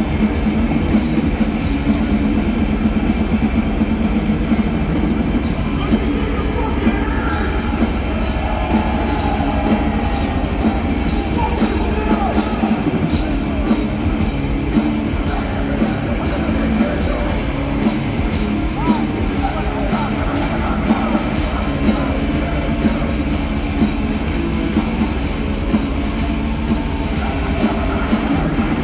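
Loud live heavy metal band playing: distorted electric guitars over a pounding drum kit, with vocals coming in at times.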